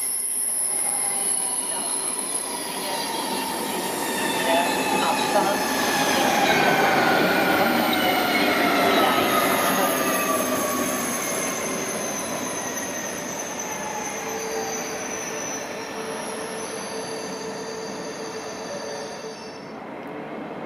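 SBB RABe 503 tilting electric train running into the station and slowing, its electric drive whine falling steadily in pitch over rail rumble, with high wheel squeal. The sound fades as the train draws away.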